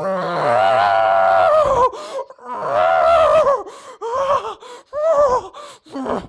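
Drawn-out moaning from a voice: a long held moan of about two seconds, a second long moan, then several shorter moans that rise and fall.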